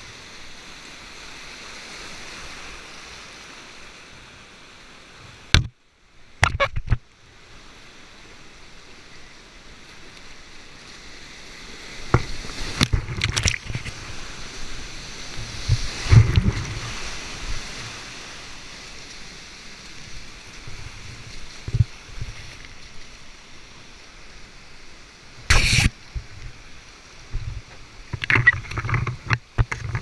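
Whitewater of a steep creek running at high water, heard from a kayak at water level: a steady rush broken by sharp splashes and water slapping on the boat and camera. The loudest crashing comes about midway as the boat plunges through a big foaming drop, with more sharp splashes near the end.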